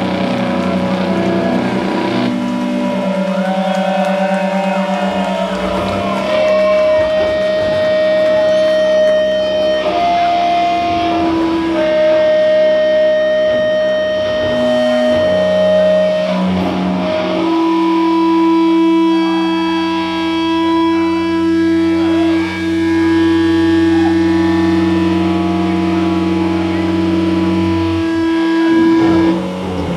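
Live doom metal from a band: heavily distorted electric guitars playing slow, long held notes over a low droning bass, the notes changing every few seconds. The drone breaks off shortly before the end.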